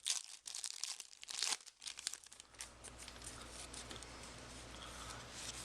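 Foil booster-pack wrapper crinkling as trading cards are handled, in quick rustles for about the first two seconds, then only a faint steady hiss.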